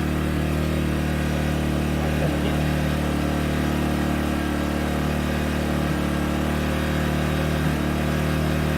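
Gentrax EC800i 800 W inverter generator's small four-stroke petrol engine running at a steady, even speed.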